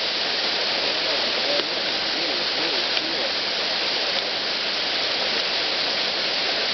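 Waterfall's steady rush of falling water, an even, unbroken noise.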